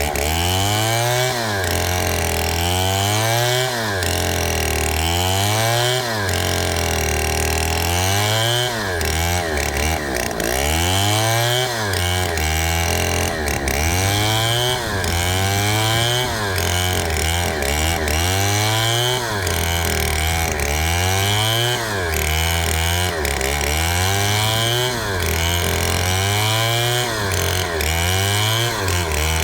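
Two-stroke chainsaw cutting through a palm trunk. Its engine pitch rises and falls over and over, roughly every two seconds, as it revs and bogs in the cut.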